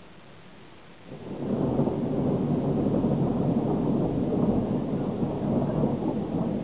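Thunder rumbling: a low rumble sets in suddenly about a second in and carries on without a break.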